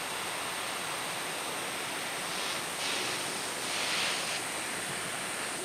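Gas burner flame hissing steadily, with two louder rushes of hiss about two and a half and four seconds in.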